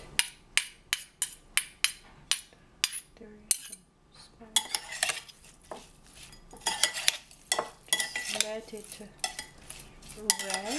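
A metal spoon clinks against a ceramic bowl in a quick run of about ten taps, stirring a dressing. After a short pause the spoon scrapes and clatters through sliced cucumbers in a ceramic bowl, tossing them to mix.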